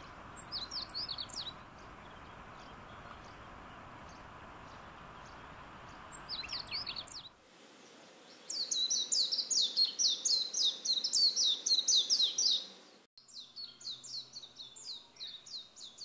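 Meadow bunting singing two short phrases of quick high notes over a steady hiss. About seven seconds in, the sound cuts to a Japanese white-eye singing a long, fast twittering song of high notes, in two runs.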